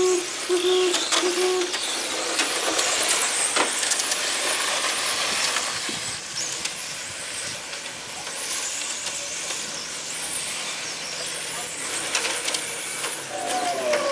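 Electric radio-controlled racing cars running laps on an asphalt track, their motors giving a high whine that rises and falls as they accelerate and brake.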